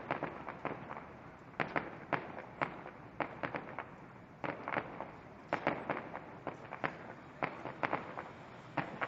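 Aerial fireworks going off: a rapid, irregular string of sharp bangs and crackles, several a second, coming in clusters with short lulls between.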